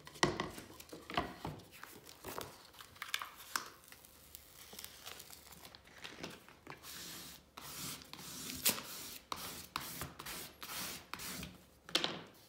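Vinyl stencil transfer paper and its paper backing rustling and crinkling by hand: irregular rubbing scrapes as the sheet is smoothed down, and crackling as the backing is peeled away.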